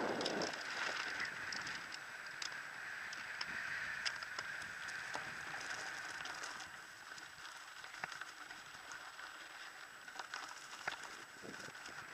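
Mountain bike riding over a dirt and gravel track and then grass: steady tyre noise with many small scattered clicks and rattles, growing somewhat quieter as it goes.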